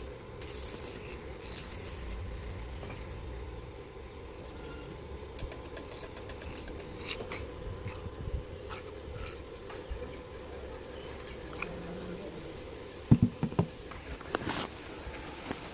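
Manual metal lathe running with a steady hum, with scattered small clicks and scraping of metal work, and a few sharp knocks about 13 seconds in.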